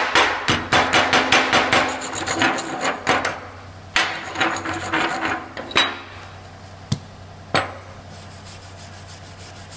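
Chipping hammer rapidly tapping flux slag off a freshly laid flux-core weld bead on steel, several light strikes a second in two runs, then two single knocks. Near the end, a short faint scrubbing of the bead.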